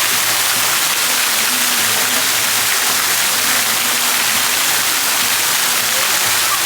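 Falling water rushing with a loud, steady hiss.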